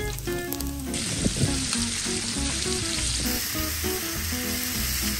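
Sauce-brushed food sizzling steadily in a hot pan, a dense frying hiss.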